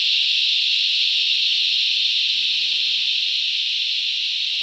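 Cicadas in a deafening chorus: a steady, very intense high-pitched drone that holds level without pause.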